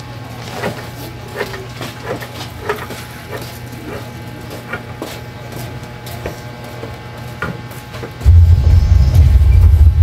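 Juki industrial sewing machine with its motor humming steadily, while scissors make scattered snips through quilt batting; about eight seconds in the machine starts stitching with a much louder, low, steady run.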